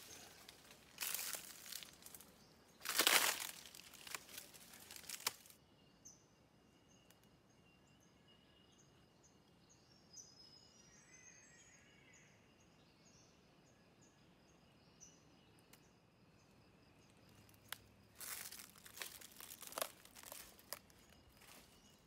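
Footsteps crunching and rustling through dry leaf litter and undergrowth for the first five seconds or so, then a pause in which only faint, repeated high bird chirps are heard, then the rustling footsteps start again about 18 seconds in.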